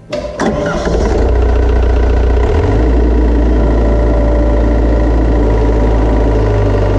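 Hitachi EX100 excavator's diesel engine starting: a couple of sharp clicks, then it catches and settles into a steady run within about a second. Its low note shifts about two and a half seconds in.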